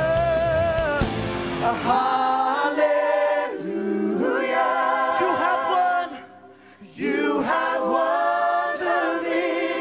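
Worship choir singing praise together; the low accompaniment stops about two seconds in, leaving the voices unaccompanied, with a short break about six seconds in.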